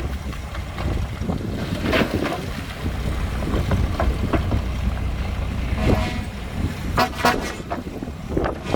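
Heavy diesel construction machinery running with a steady low rumble, broken by a few short sharp noises about 2, 6 and 7 seconds in.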